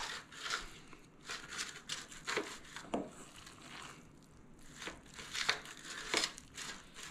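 Hands packing moist crab stuffing into a whole flounder in a thin disposable aluminum pan: scattered short, faint rustles and crackles as the pan flexes and the stuffing is pressed and scooped.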